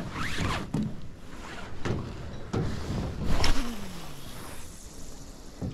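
Rustling and movement noise on a body-worn camera, then a cast with a Savage Gear SGS6 spinning rod about three and a half seconds in, the loudest moment, followed by a short falling tone as it dies away.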